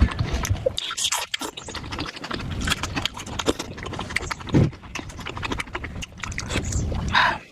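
Close-miked eating sounds: wet chewing and biting of momos in spicy jhol gravy, with many short clicks.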